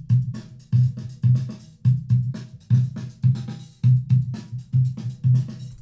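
Hip-hop/funk drum-kit loop at 97 beats a minute previewed in Cubase 5's Loop Browser, with about two strong low hits a second in a steady pattern.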